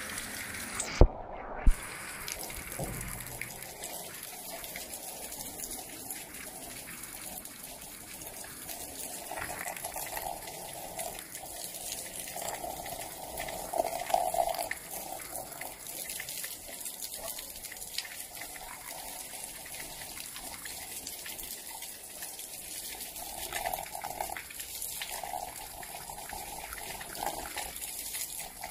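Rainwater pouring down in a stream and splashing onto a concrete floor, steady throughout, with louder splashing in stretches as a rubber shoe is held under the stream. A couple of sharp knocks about a second in.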